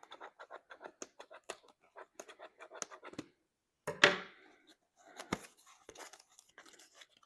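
Tape being peeled and torn off a taped-shut diamond painting kit, with its packaging handled: a quick run of short rips and crackles, and one louder burst about four seconds in.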